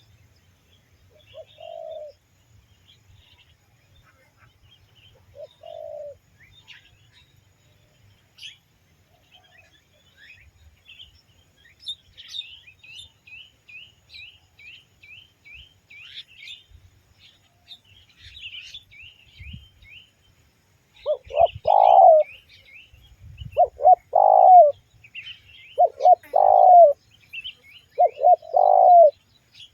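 Spotted dove cooing: two short coos in the first six seconds, then a run of five loud coos about two and a half seconds apart in the last third. Smaller birds chirp high in the background, with a fast run of chirps in the middle.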